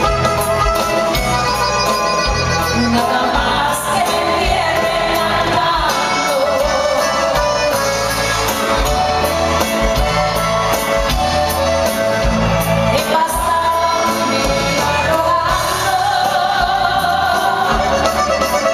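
Live norteño band music with singing, recorded from the audience in a large arena.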